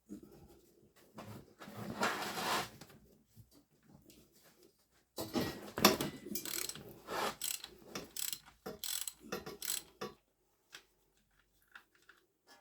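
Ratchet wrench with a 17 mm socket clicking and working the oil drain plug of a Yamaha XJ600 motorcycle, loosening it to drain the oil. It comes in two spells of ratcheting strokes, a short one at the start and a longer, louder one from about five seconds in.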